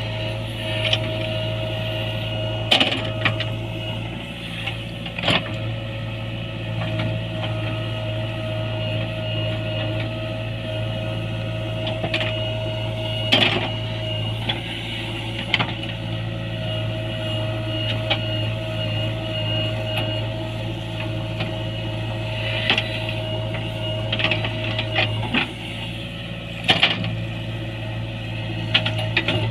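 JCB 3DX backhoe loader's diesel engine running steadily under work, with a high whine that breaks off now and then and several sharp knocks scattered through.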